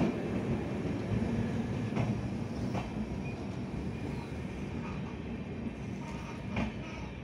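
Indian Railways LHB express coaches rolling past on the track, their wheels clicking sharply over rail joints a few times. The luggage-brake-and-generator car passes last, and the rumble eases off slowly as the train draws away.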